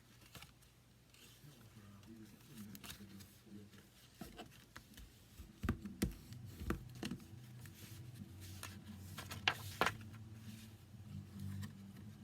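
Cardstock flaps of a paper waterfall card clicking and rustling as the pull tab is worked, with a few sharp paper snaps about six seconds in and again near ten seconds.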